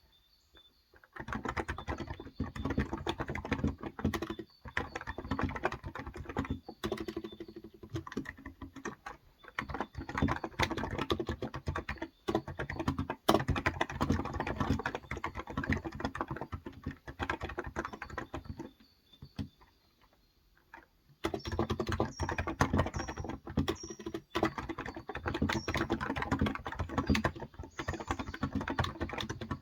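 Continuous typing on a Cox Endeavor 35 g electrostatic-capacitive (Topre-style) tenkeyless keyboard: dense runs of soft keystrokes, broken by a pause of about two seconds past the middle. Faint high bird chirps sound in the background.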